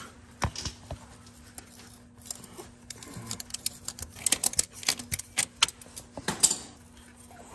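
Locking pliers (vise grips) clicking and scraping on a rusted exhaust manifold stud as it is twisted back and forth out of the cylinder head: scattered sharp metal clicks, thickest about four to five seconds in, with a few more near the end.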